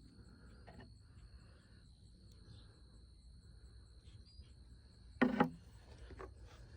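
Insects calling steadily at a high pitch over a low background rumble, with a short sharp knock about five seconds in.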